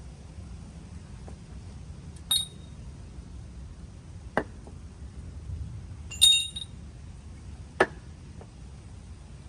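A few separate metallic clinks and knocks from tools or steel parts being handled, four in all; the second and loudest, past the middle, rings with a high bright tone.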